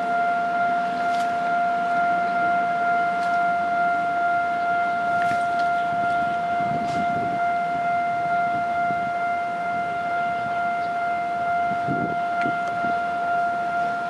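Railway level-crossing warning alarm sounding one steady high tone without a break while a train passes the crossing.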